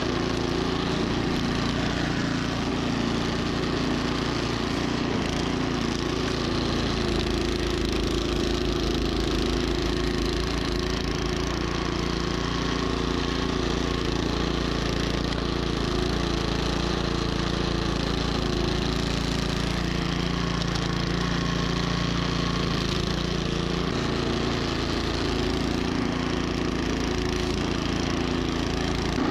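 Troy-Bilt snowblower's engine running steadily.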